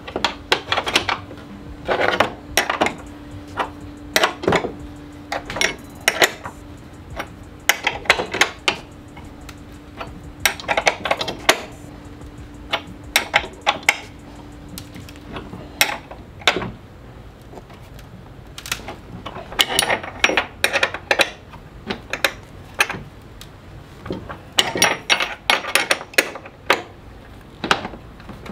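A wrench clinking and clicking on steel bolts and lock nuts as the bolts that hold a bench vise to the bench top are tightened: irregular clusters of short metal-on-metal clinks. A low steady hum runs underneath and stops about halfway through.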